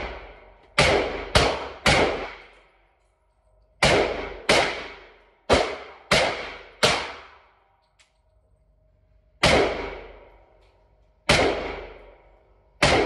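Single gunshots in an indoor shooting range: about eleven, fired one at a time in uneven clusters rather than as an automatic burst, each followed by a long echoing decay.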